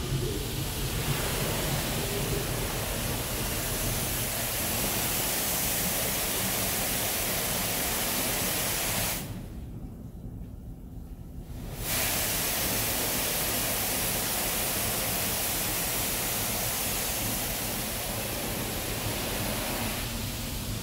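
High-pressure water jets of a touchless car wash spraying over a cargo van, heard from inside the van as a steady rushing hiss. The spray drops away about nine seconds in and comes back about three seconds later.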